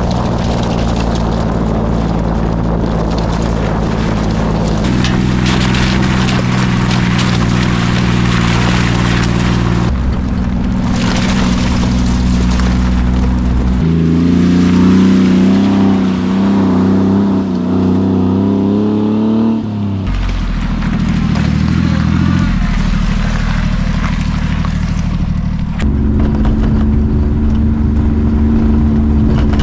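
Honda Acty mini truck's small engine running under way on a gravel track. Its note holds steady and then jumps to a new pitch every few seconds, over a hiss of wind and road noise.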